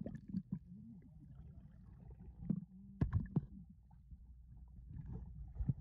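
Muffled underwater sound of a swimming pool, picked up by a submerged camera: a low rumble with several sharp knocks, the densest cluster about three seconds in.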